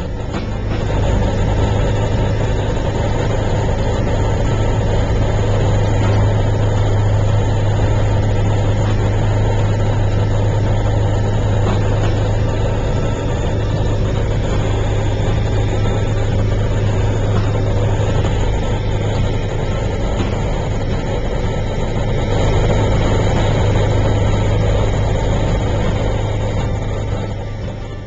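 Steady drone of an aircraft's engines heard from inside the cabin, with a strong constant low hum, growing louder about a second in.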